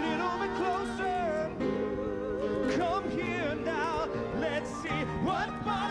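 Live band music in a rock ballad: sustained chords under a lead line that wavers with heavy vibrato and bends up and down in pitch.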